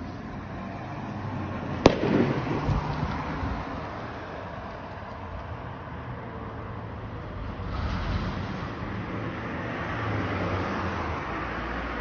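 A single sharp bang about two seconds in, echoing briefly, over steady street and traffic noise.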